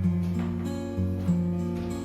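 Background music: acoustic guitar strumming chords in a gentle, even rhythm.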